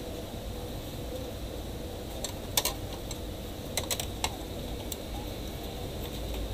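Plastic laptop bottom case being fitted and pressed onto the chassis: a handful of sharp plastic clicks and taps between about two and five seconds in, over a steady low hum.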